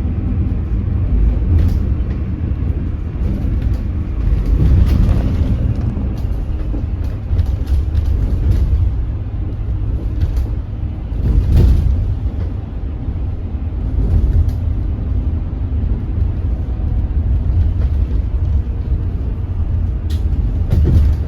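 2025 hydrogen fuel-cell city bus under way, heard inside the cabin: a steady low rumble with occasional brief knocks and rattles.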